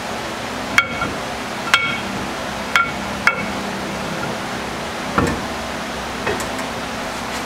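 Light metallic clinks with a short ring, four in the first three and a half seconds, then a duller knock about five seconds in and a fainter one after it, as a one-piece axle shaft's hub and the drum-brake backing plate of an AMC 20 axle are handled and fitted. A steady hum runs underneath.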